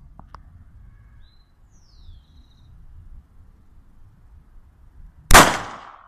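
A single loud pistol shot about five seconds in, sharp and sudden, with a brief echo dying away after it.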